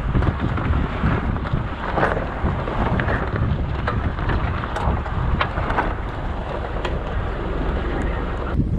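Wind buffeting the microphone over the steady running of the sailboat's engine, with a few brief sharp noises.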